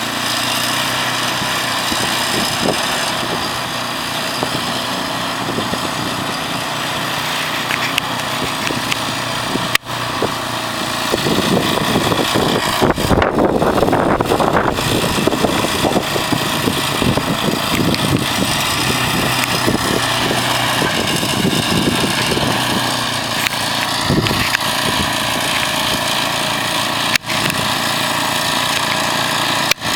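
Snowblower's small gasoline engine running steadily, getting louder and rougher for a few seconds in the middle, with a couple of brief dropouts.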